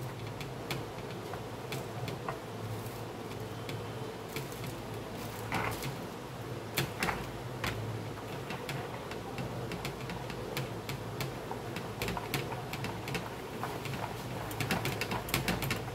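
Wire whisk beating chocolate pancake batter in a bowl: rapid, irregular clicks and taps of the whisk wires against the bowl's sides.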